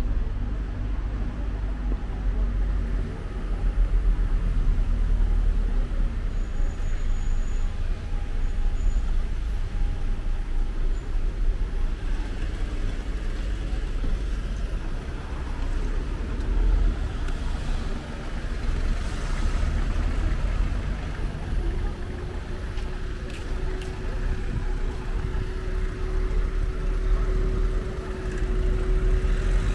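Street traffic: cars running and passing over a continuous low rumble. A steady hum comes in about two-thirds of the way through.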